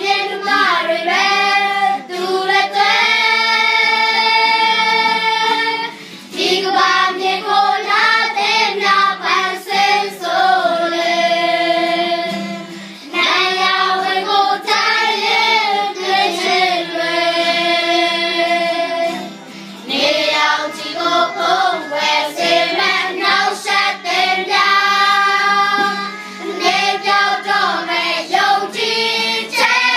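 A group of children singing together, with no instruments heard. They hold long sung phrases, with short breaks for breath about every six or seven seconds.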